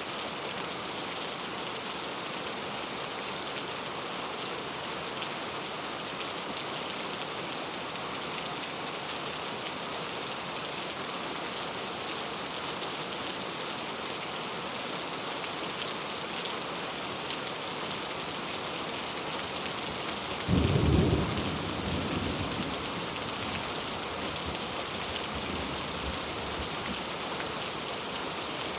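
Steady rain falling on a road, an even hiss. About two-thirds of the way through a sudden low rumble rises over it and dies away over a few seconds.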